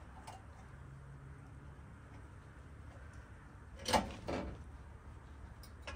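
Two sharp knocks close together about four seconds in, and a faint click near the start, over a low steady hum: hand tools working against metal while prying push-on retainers off exhaust mounts.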